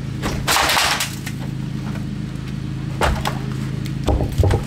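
Pieces of a rotted fiberboard window sill being pried and pulled out by hand. A scraping crunch of crumbling board comes about half a second in, followed later by several knocks and clunks near the end.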